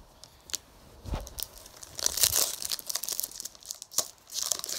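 Foil wrapper of a baseball card pack being torn open and crinkled, in several short rustling bursts, loudest about two seconds in and again near the end.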